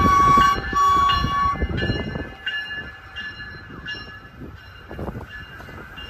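GO Transit cab car horn, which is clogged, sounds two short blasts with one strong note on top. It is followed by the rumble of the bi-level coaches rolling past, with a few knocks.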